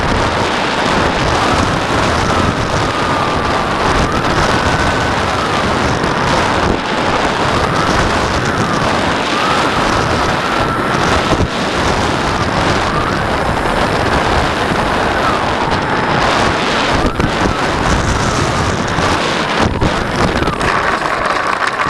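Wind rushing over the onboard camera of a radio-controlled model Twin Otter in flight, with the whine of its twin propeller motors rising and falling in pitch.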